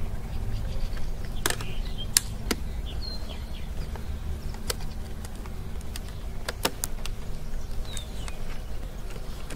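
Several sharp plastic clicks and knocks, spread unevenly with a quick cluster about two thirds of the way through, as the visor of a Scorpion 710 motorcycle helmet, now fitted with a Pinlock insert, is handled and clipped back onto the helmet. A steady low rumble runs underneath, with a few faint high chirps.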